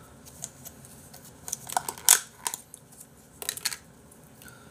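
Chopsticks clicking and tapping against a small cup in a scattered series of sharp clicks. The loudest click comes a little after two seconds in, and another cluster comes about three and a half seconds in.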